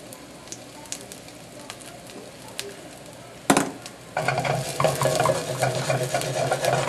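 Oil sizzling faintly with small crackles under a scallion pancake frying in a non-stick wok. About three and a half seconds in comes a sharp clack, then a loud, steady rasping scrape as the wok is worked on the stove.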